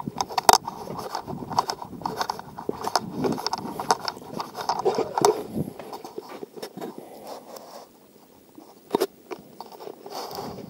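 Footsteps crunching and scuffing on a dry dirt and gravel trail while walking downhill, with a few sharp taps. The steps thin out about two-thirds through, then sharp taps return near the end.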